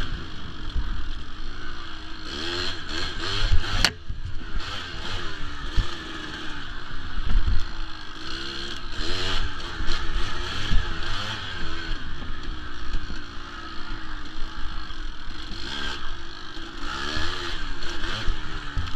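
Kawasaki KDX200 two-stroke single-cylinder dirt bike engine revving up and down as it is ridden along a trail, its pitch rising and falling with the throttle. A single sharp knock cuts through about four seconds in.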